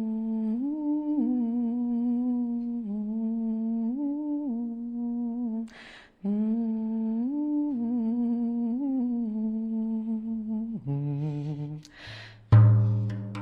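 A woman humming a simple, slow melody in two phrases that hold and step between a few notes, with a breath between them. Near the end, a frame drum is struck once, loudly, with a deep ringing boom.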